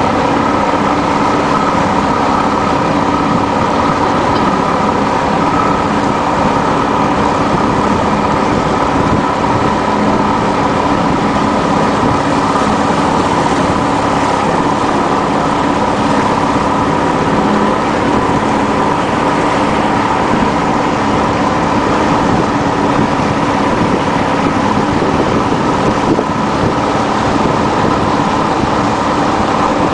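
An engine running steadily at an even pitch, with a constant hum and no changes in speed.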